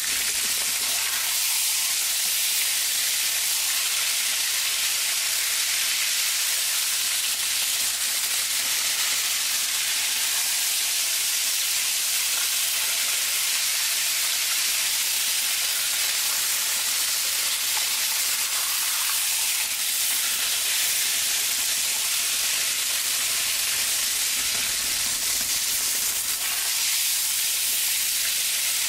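Breaded pork cutlet shallow-frying in hot oil in a frying pan: a steady, even sizzle.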